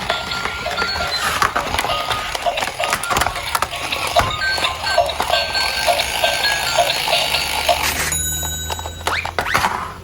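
Bell-like electronic music with a regular pulse of short notes, about three a second, over a steady hiss; the pattern changes near the end.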